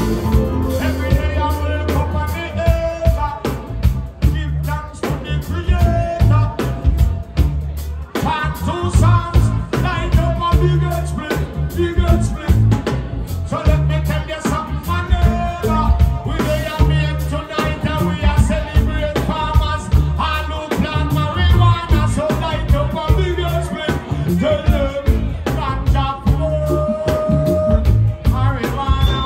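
Live reggae band playing, with electric guitar, drums and a heavy pulsing low end, and a male voice singing over it.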